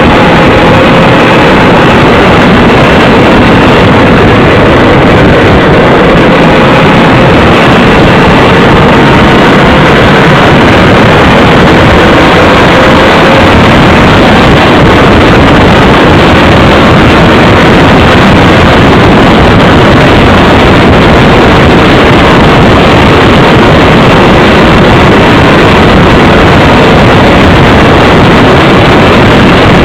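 Motorcycle riding at road speed, with wind buffeting the microphone and the engine droning steadily underneath, very loud and distorted throughout. The engine's pitch creeps up slightly over the first dozen seconds.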